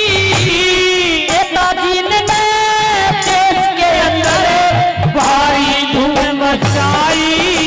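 A woman singing a Haryanvi ragni into a microphone, amplified, with melodic accompaniment and recurring low drum beats. Her voice holds long, slightly wavering notes.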